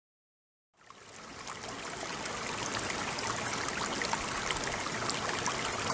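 Steady sound of rushing, trickling water that fades in out of silence about a second in, then holds even.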